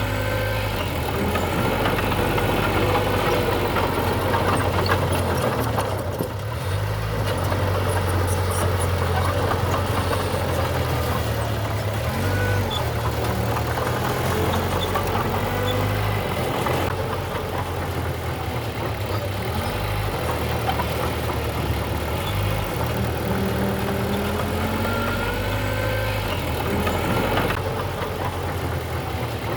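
Heavy diesel engine of earthmoving machinery running continuously, its low note shifting up and down in steps as the load changes.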